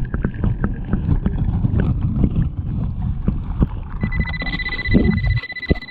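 Muffled rushing and churning of turbulent water picked up by a microphone held underwater beneath a waterfall, full of irregular knocks and clatters. About four seconds in, a steady high tone sounds for around two seconds.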